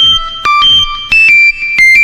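A short electronic melody of single synthesizer-like beeping notes, about five held tones stepping up and down in pitch.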